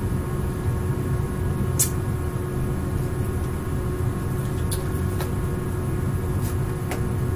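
Steady low hum with a few faint, brief clicks scattered through it.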